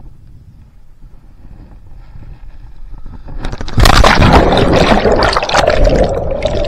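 Water splashing and sloshing close to the microphone, a low rumble at first that turns suddenly loud about four seconds in.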